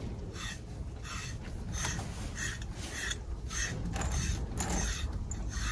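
Plastic grooming brush rasping through a cow's coat in quick, regular strokes about every half second. The cow is shedding heavily, and hair is coming out with each stroke.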